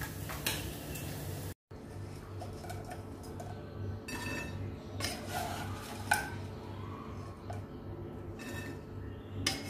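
A wooden spatula scraping and knocking against a pot and a cast-iron sizzling plate as fried pork pieces are scooped across, several separate scrapes with a sharper knock midway, over a steady low hum.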